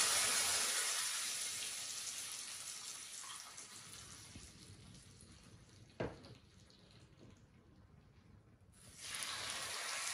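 Hot tadka of oil, mustard seeds, cumin, red chilli, hing and curry leaves sizzling as it hits the liquid buttermilk rasam, the hiss dying away over about five seconds. A single knock about six seconds in, then a second sizzle near the end as rasam is ladled into the hot tadka pan.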